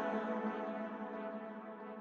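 Background music: a held chord of sustained tones dying away slowly at the end of a piece.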